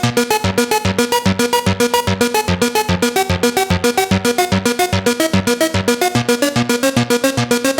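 Korg ARP 2600 FS synthesizer playing a fast, repeating sequenced pattern of short notes, about eight a second, over a pulsing bass line.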